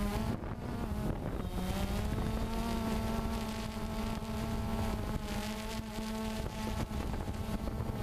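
DJI Phantom 2 quadcopter's motors and propellers whining steadily, picked up by the GoPro mounted on the drone, with wind rumbling on the microphone. The whine steps slightly up in pitch about a second and a half in.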